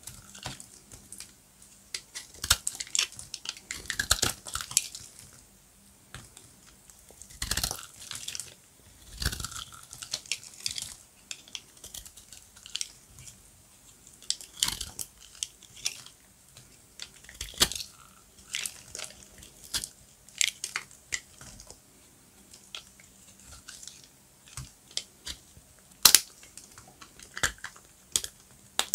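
Dry soap crunching and crackling as it is cut and crushed: irregular crisp crackles with a few louder snaps among them.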